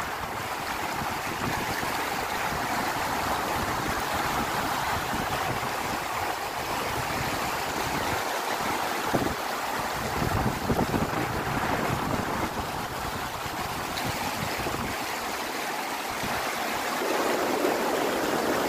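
Shallow, fast stream rushing steadily over stones.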